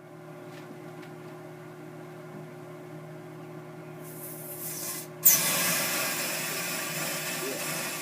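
Microwave oven humming steadily. About four seconds in a hiss builds, then a sudden sharp pop as a heated bottle of beer breaks its cap seal, followed by a loud steady hiss of steam spraying out.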